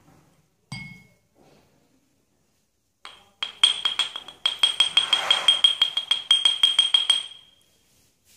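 Pestle pounding spices in a mortar: a single ringing clink about a second in, then from about three seconds a fast run of ringing strikes, several a second, that stops about seven seconds in.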